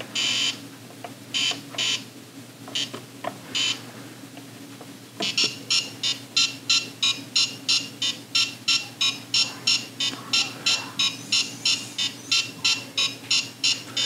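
Etch A Sketch Animator's built-in beeper giving short, high electronic beeps. There are a few scattered beeps at first, then from about five seconds in a steady run of about three beeps a second while it plays back the animation. A faint steady low hum runs underneath.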